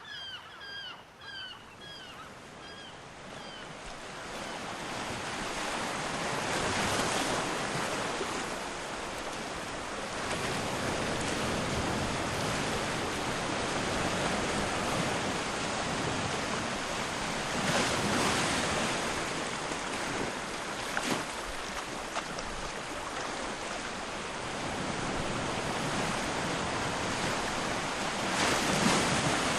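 Sea surf washing onto the shore at low tide, a steady wash that swells every few seconds. In the first few seconds a bird gives a quick series of short chirped calls before the surf builds.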